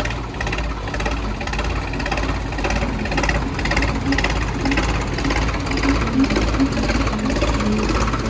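Tractor diesel engine running, a loud, steady low rumble with a fast, even beat.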